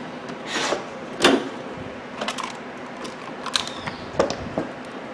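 Scattered clicks and light knocks from hands handling the microwave and its contents, with a short rustle under a second in and a sharper click just after a second.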